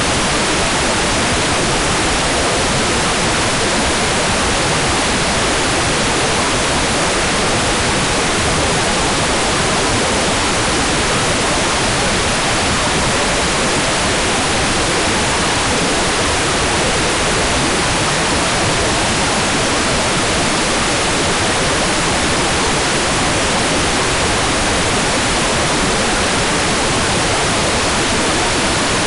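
Hair dryer running steadily: an even, unbroken rushing hiss that never changes in pitch or loudness.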